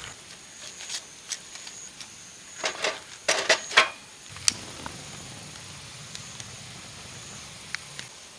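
Split firewood knocking and clattering against other pieces and the sides of a Rhino stainless-steel fire pit as it is stacked in. There is a quick cluster of loud knocks about three seconds in, one sharp clack a second later, and a few lighter clicks.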